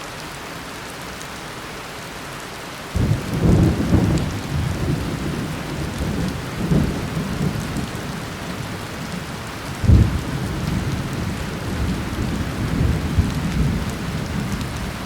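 Steady rain falling, with thunder rumbling in suddenly about three seconds in and rolling on. The loudest crack comes around ten seconds in.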